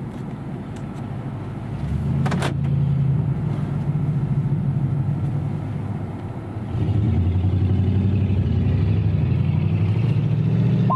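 A motor vehicle's engine running with a low, steady hum that gets louder about two seconds in and again about seven seconds in. There is a brief click about two seconds in.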